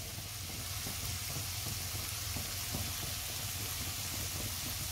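Marinated chicken pieces sizzling steadily in a frying pan: the water has cooked off and the chicken is frying in its oil and masala. A low steady hum runs underneath.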